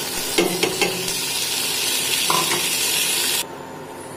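Uncooked rice sizzling in hot ghee and oil in a frying pan as it is tipped in and stirred, with a few clicks and scrapes of a metal spoon. The sizzle cuts off suddenly near the end.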